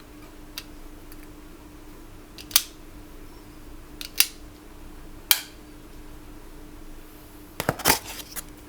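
Sharp plastic clicks and snaps from handling the earbuds and their packaging: single clicks spaced a second or two apart, then a quick cluster of clicks near the end, over a steady low hum.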